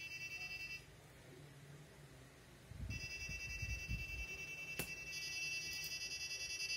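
Reminder alarm ringtone of a web app, a repeating ringing of several high-pitched tones at once, which signals that the set reminder time has been reached. It breaks off about a second in and starts again about three seconds in, with a few dull bumps and a sharp click around then.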